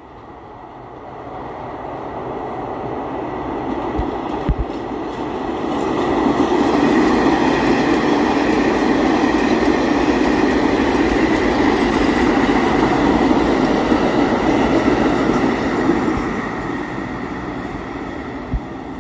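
A New York City Subway 5 train approaches and runs past on the express track without stopping, its wheels rumbling and clattering on the rails with a faint steady high whine. The sound builds over the first few seconds, stays loud as the cars go by, and fades near the end.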